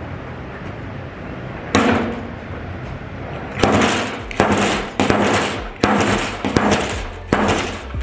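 Slide hammer on a stud-welder dent puller, its sliding weight slamming against the stop to pull on a welded stud and draw out a dent. One sharp metallic strike comes a little under two seconds in, then a steady run of six more about 0.7 seconds apart, each ringing briefly.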